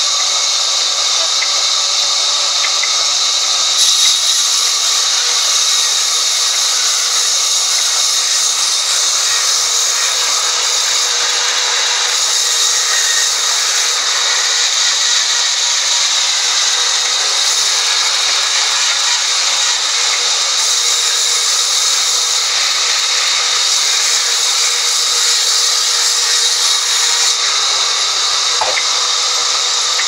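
Vertical band saw cutting lengthwise through a mahogany log: a loud, steady high-pitched hiss of the blade running through the wood.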